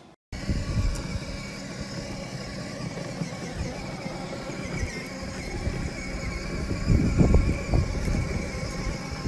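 Kidzone 6V electric ride-on bumper car driving over concrete: a faint steady motor whine over a low, uneven rumble, which begins abruptly a moment in.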